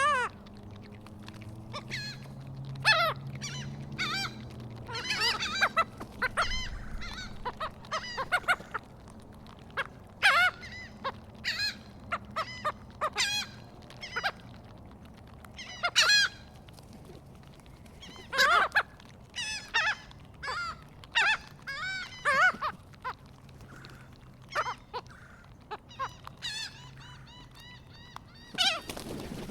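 Seagulls and crows calling, many short harsh calls one after another.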